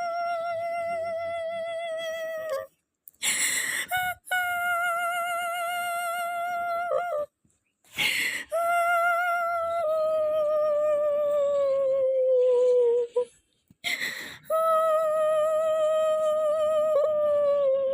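A voice holding long, wavering notes, four in a row, each lasting a few seconds and sagging slowly in pitch, with a sharp breath between them.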